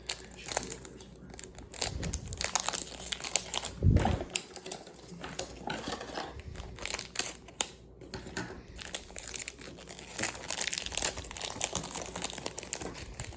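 Plastic packaging crinkling and rustling as a puzzle cube is unwrapped and handled, with scattered small clicks and one dull thump about four seconds in.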